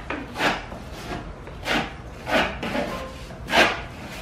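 Putty knife scraping across a freshly patched hole in drywall, smoothing the filler in four short strokes.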